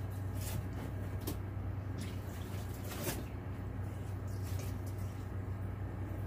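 Water dripping and splashing from wet clothes being lifted out of and worked over the water-filled wash tub of a twin-tub portable washing machine, with a few short splashes over a steady low hum.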